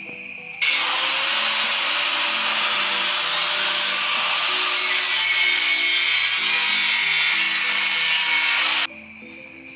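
A power tool cutting, a steady grinding noise that starts under a second in and stops suddenly about a second before the end.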